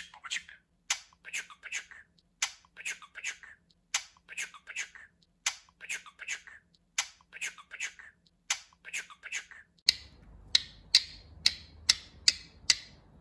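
Budgerigar making short, sharp clicking sounds, about two a second. About ten seconds in, a low hum rises underneath and the clicks get louder.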